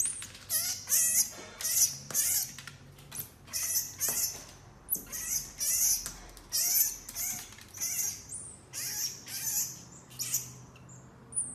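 Common marmoset giving a rapid string of short, high-pitched squeaky calls, several a second, some sliding in pitch.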